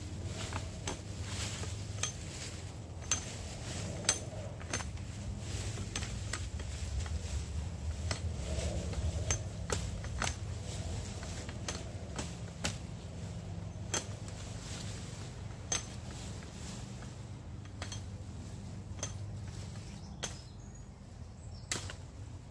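Dry twigs and sticks snapping and cracking as they are broken by hand: sharp, irregular snaps every second or two over a low steady rumble.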